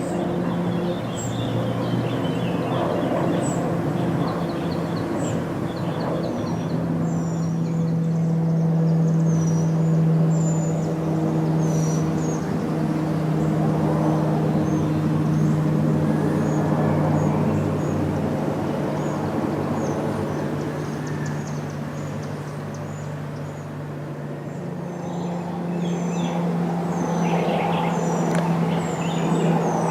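Aircraft engines running with a steady low drone that swells around the middle and eases again, with birds chirping throughout.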